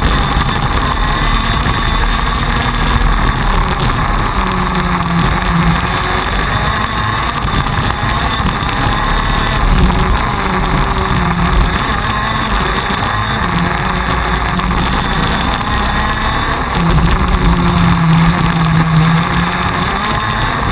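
TM 125cc two-stroke KZ2 shifter kart engine heard from on board at racing speed, its revs rising and falling again and again through the laps.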